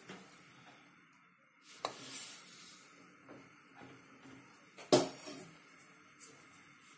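Salt poured from a steel plate into an empty aluminium pressure cooker, a short grainy hiss, laid in as a bed for baking a cake in the cooker. About five seconds in there is a single sharp metal clank, and later a lighter click, as the plate and hand work at the pot.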